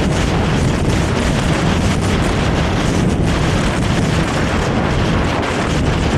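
Honda CRF300L single-cylinder engine running under way with its stock exhaust, buried in heavy wind buffeting on the microphone. Loud and steady throughout.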